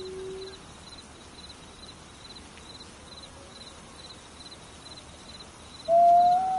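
Gray wolf howling: one long howl on a steady low pitch fades out about half a second in, then after a pause a second howl starts loud on a higher pitch near the end. An insect, likely a cricket, chirps faintly in the background about twice a second.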